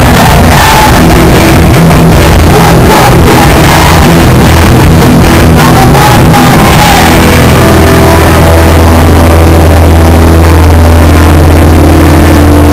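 Hardcore punk band playing live, recorded so loud that it is overloaded and distorted: pounding drums and distorted guitars. About seven seconds in, the drumming stops and a low guitar and bass chord is held and rings out.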